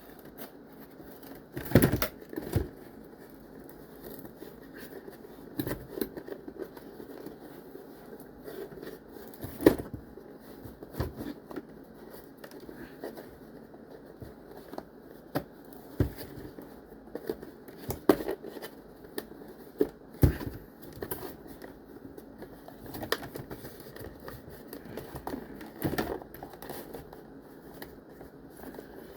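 Toy packaging being opened by hand: plastic and card crinkling and tearing, with scattered sharp clicks and knocks as the parts are worked free of their twist ties.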